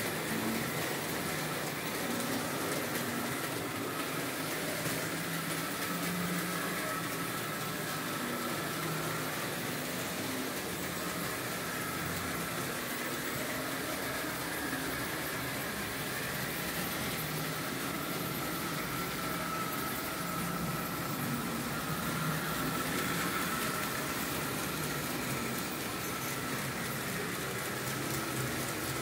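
Märklin H0 model trains running on the layout: a steady electric motor whir with a faint high whine and wheels rolling on the track.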